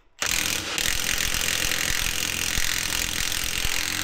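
Milwaukee 2864-20 M18 Fuel 3/4-inch high-torque impact wrench hammering on a tight Duramax 3.0 diesel head bolt. It starts just after the beginning and runs nearly four seconds without letting up: the bolt took a little bit of extra effort to break loose.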